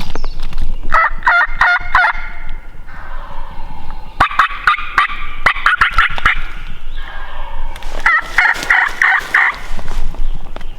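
Male wild turkey gobbling, three rapid rattling gobbles: about a second in, a longer one around four seconds in, and another about eight seconds in. Sharp clicks and crackles are scattered between them.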